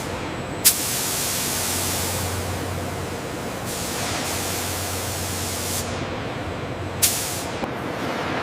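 A steady, loud hiss with a low hum underneath, broken by two sharp clicks about six seconds apart.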